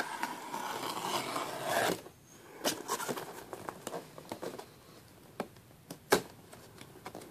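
Cardboard shipping box being opened by hand: about two seconds of steady rustling scrape against the cardboard and tape, then scattered scrapes and taps as the end flap is pulled open, with one sharp tap about six seconds in.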